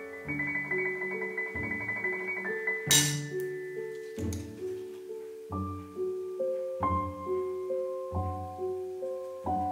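Soft background piano music, one gentle note after another. About three seconds in, a single sharp tap sounds over it.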